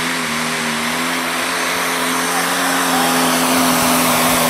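A John Deere Pro Stock pulling tractor's turbo-diesel engine at high revs under load as it drags the weight sled. It holds a steady, near-constant pitch that creeps up slightly and grows a little louder near the end.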